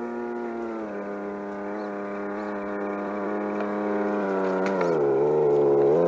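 Simulated engine sound from an RC crawler truck's electronic sound module, played through its small speaker as a steady, buzzing engine note. A little over four seconds in, the note drops lower for about a second, then climbs back. It grows louder as the truck nears.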